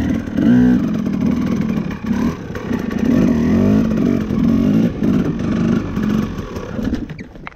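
Dirt bike engine revving, its pitch rising and falling again and again, then dropping away near the end.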